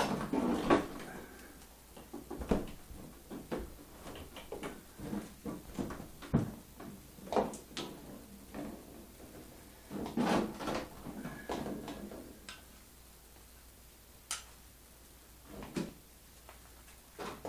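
Steel wire mesh being handled and bent by gloved hands: irregular clinks, knocks and rattles, with denser bursts of clatter right at the start and about ten seconds in.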